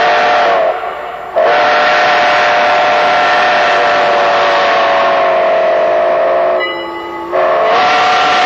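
Steam whistle of Chicago & North Western 1385, a 4-6-0 ten-wheeler, blown in long loud blasts. It eases off twice, about a second in and again near seven seconds, and the pitch sags each time before the next blast.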